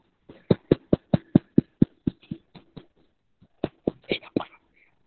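A rapid run of about a dozen sharp computer clicks, four or five a second, then a short pause and a second, rougher cluster near the end. They are the clicks of paging back through a presentation's slides.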